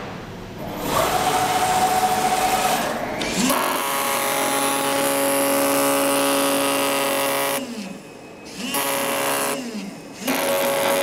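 CNC oscillating-knife gasket cutter running: a steady, high-pitched mechanical whine with a buzz in it. Twice near the end it winds down and back up, the pitch falling and then rising again.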